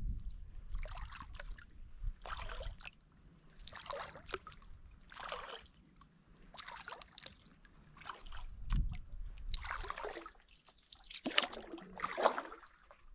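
Kayak paddle strokes in calm water: the blades dip in and dribble as they lift out, about one stroke every second and a half.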